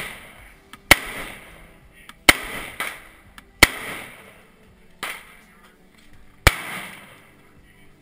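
Rifle fired five times in slow, evenly paced aimed shots about a second and a half apart, each sharp crack trailing off in echo.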